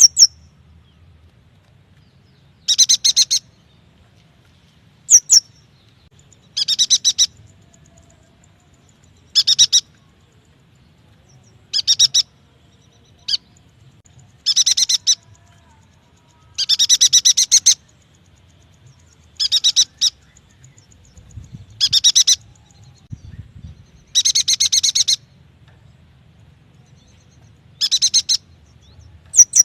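Yuhina song: short bursts of rapid, high chattering notes, repeated about every two to three seconds. A few single sharp, sweeping call notes fall between the bursts.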